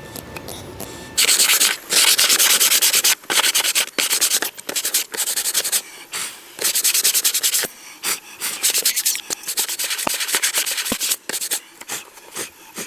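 Sandpaper rubbing on wood in repeated strokes. It starts about a second in and comes in short spells with brief pauses.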